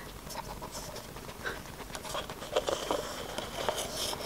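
Miniature dachshund nosing at upturned cups on a carpet and tipping them over, making light scattered taps and rustles.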